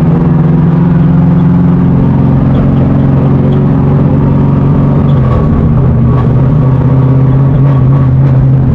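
LS3 V8 car engine running at steady high revs, its pitch stepping down a little about two seconds in and again around five seconds.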